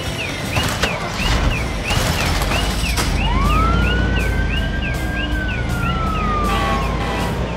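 Electronic siren of a toy fire engine wailing quickly up and down, about one and a half cycles a second, stopping near the end. From about three seconds in a second tone rises and then slowly falls over a low rumble.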